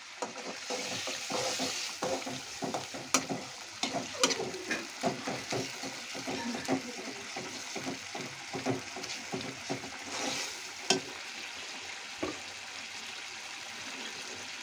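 Egg curry gravy sizzling in a steel pan while a steel spoon stirs it, scraping and clicking against the pan. The stirring stops about twelve seconds in, leaving a steady sizzle.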